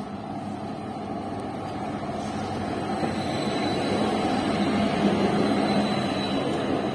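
Electric tram running along street rails as it approaches and passes close by, growing louder as it nears, with a faint steady high whine from about three seconds in.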